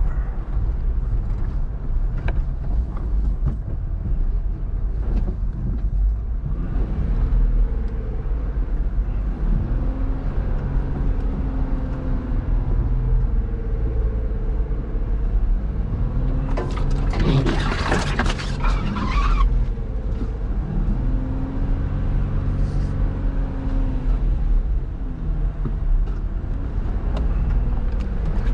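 Jeep engine running as it is driven along an off-road trail, with a low rumble throughout and the engine pitch rising and falling as it works. Around two-thirds of the way through comes a loud burst of rushing noise lasting about three seconds.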